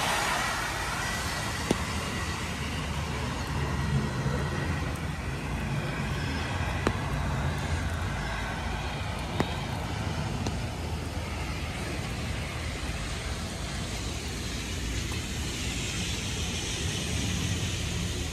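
Road traffic on a rain-soaked road: car tyres hissing on wet asphalt over a steady low rumble, with a few sharp ticks cutting through.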